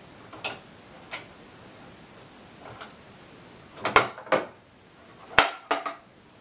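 The metal links of a leg vise's X Link scissors mechanism being handled and pulled out: a few light clicks, then four sharper metallic clacks in two quick pairs.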